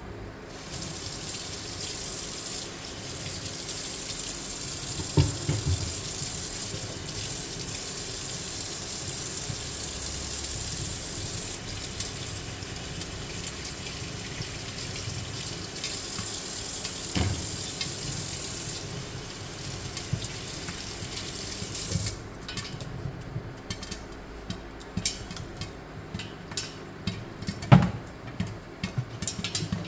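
Popcorn kernels sizzling in hot coconut oil in a stainless steel pot, a steady hiss. About two-thirds of the way through the hiss dies down and the kernels start popping, with scattered sharp pops.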